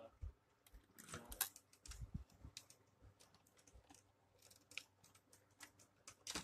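Faint, irregular small clicks and light knocks, a few a second, over near silence.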